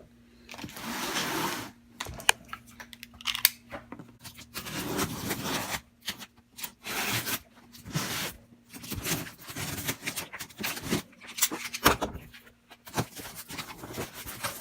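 Cardboard box being opened by hand: packing tape tearing, and cardboard flaps and packaging rubbing and scraping, in irregular bursts with sharp knocks and clicks between them.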